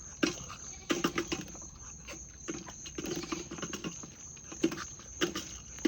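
Animals eating dry cat food: irregular clusters of crunching, clicking and tapping on the kibble.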